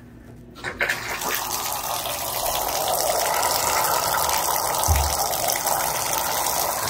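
Bathtub faucet turned on, with a click of the valve, then water gushing steadily from the tub spout into the tub. There is a short low thump about five seconds in.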